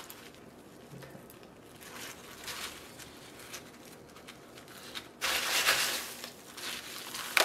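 Chunky bark potting mix being scooped by hand in an aluminium foil tray and poured into a small plastic pot, rustling and crunching. The loudest scoop comes about five seconds in.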